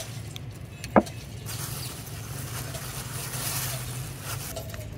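A steady low hum, with one sharp knock about a second in.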